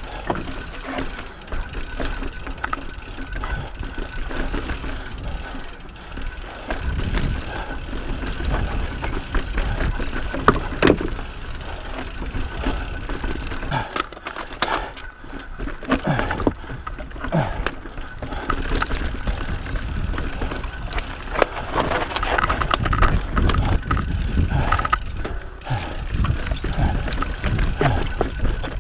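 Mountain bike ridden over a rough, rocky trail: continuous rumble of the tyres over rock, with frequent sharp knocks and rattles from the bike.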